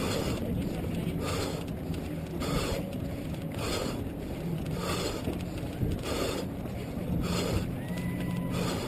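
Muffled running noise picked up by a head-mounted GoPro Hero 2 in its housing: rubbing and swishing that repeats a little more than once a second in time with the runner's motion, over a low steady hum.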